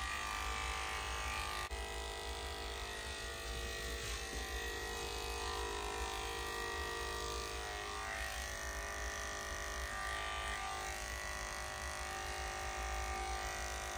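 Electric dog-grooming clippers with a #40 blade running steadily as they shave a Bedlington Terrier puppy's ears: an even motor hum, with a brief click about two seconds in.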